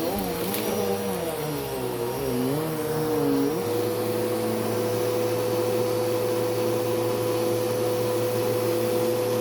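Bissell vacuum cleaner running on carpet. Its pitch wavers for the first three and a half seconds, then settles into a steady hum.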